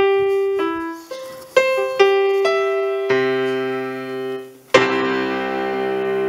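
Piano introduction to a choral hymn: six single notes of a melody, about two a second, then a held chord about three seconds in and a fuller chord a little before five seconds that rings on.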